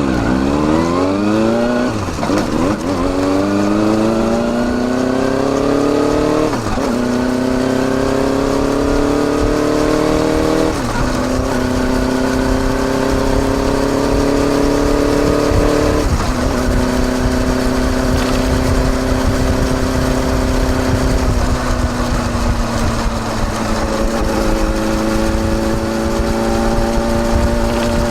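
Kawasaki Balius 250 cc inline-four exhaust through a Wr's aftermarket muffler with the baffle fitted, heard from right above the silencer. The bike accelerates through four upshifts, the engine note climbing and then dropping at each change, and then settles into a steady cruise.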